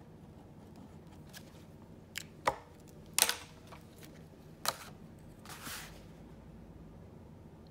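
Sharp taps and knocks of a plastic ruler and pencil being picked up and set down on a sketchbook on a wooden desk, about five in all with the loudest a little past three seconds in, then a short soft swish as the ruler slides across the paper into place.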